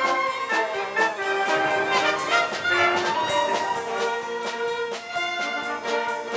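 Symphony orchestra playing a lively Broadway-style concert piece live, brass prominent over the strings, driven by sharp accented beats at a steady pulse.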